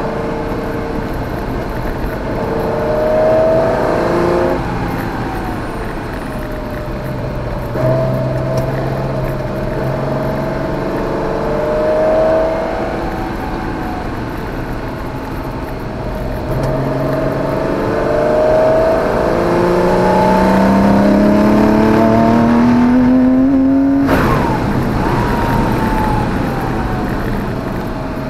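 Porsche 914/6's flat-six engine heard from inside the cabin, pulling hard with the pitch climbing and then dropping at each gear change or lift, several times over. The loudest and longest climb comes near the end, then cuts off sharply as the throttle is lifted.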